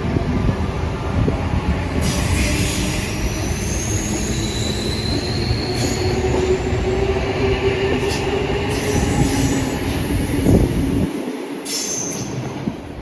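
Passenger train running on the rails with a steady rumble, and high wheel squeals drifting upward in pitch a few seconds in, with another short squeal near the end.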